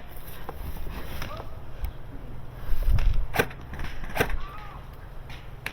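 Two sharp snapping shots from an airsoft gun, a little under a second apart past the middle, just after a low rumbling thump of movement or handling against the microphone.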